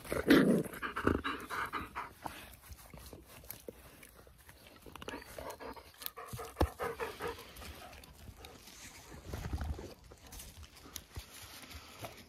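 Dogs panting close to the microphone, with a loud scuffle in the first second or so as one jumps up.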